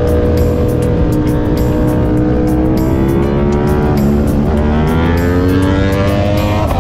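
Motorcycle engine pulling hard under way, its pitch climbing, dipping at a gear change about four seconds in, then climbing again through the next gear.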